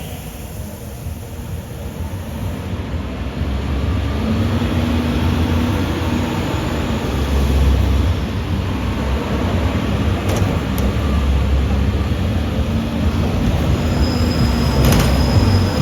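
Tour tram running: a steady low rumble that grows louder over the first few seconds, with a couple of brief clicks.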